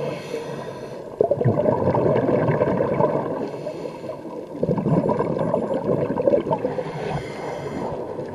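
Scuba diver breathing through a regulator underwater: exhaled bubbles gurgle for about two seconds at a time, twice, with a softer hiss of inhalation between them.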